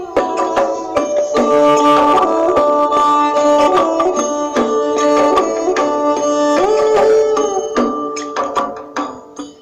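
Instrumental outro music: held string notes that slide in pitch over quick hand-drum strokes, fading out near the end.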